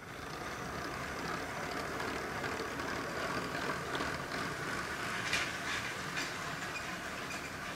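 Motorised Lego trains rolling past on plastic Lego track: a steady rolling rumble of the wheels and motor, with an occasional sharp click as the wagons cross track joints.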